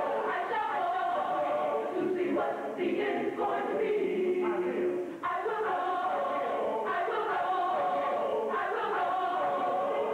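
Mixed gospel choir of men's and women's voices singing in harmony, holding long chords that shift every couple of seconds.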